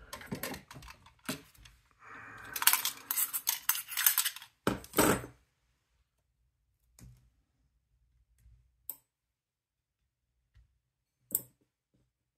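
A small screw clinking into a dish, with a dense run of rattling metallic clinks about two seconds in that lasts some three seconds. A few light clicks and taps follow.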